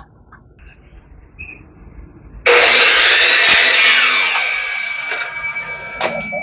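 Quiet handling clicks, then about two and a half seconds in a power saw cuts into sapodilla hardwood with a sudden loud rasp that slowly eases, a steady whine running under the later part of the cut.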